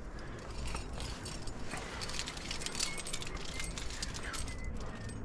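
Trad climbing rack of cams and carabiners clinking and jangling on the harness gear loops as the climber moves up the crack, in many small irregular clinks over a low steady rumble.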